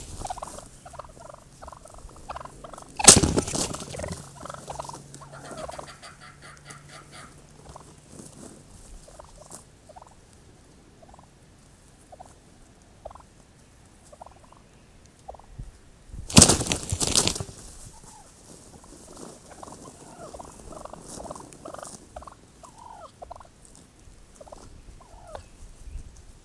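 Wild turkey toms gobbling loudly, once about three seconds in and again around sixteen seconds, with softer short turkey calls in between.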